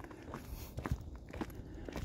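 Footsteps of a person walking on a paved road, about two steps a second.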